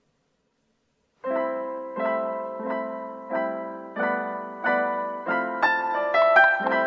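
Silence, then about a second in background piano music starts: chords struck in a steady pulse of about three every two seconds, each fading before the next, with higher melody notes coming in near the end.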